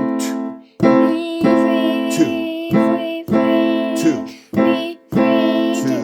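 Piano playing a short beginner piece in which the notes A, C and E are sounded together as a chord, struck about six times in a steady rhythm, each ringing until the next.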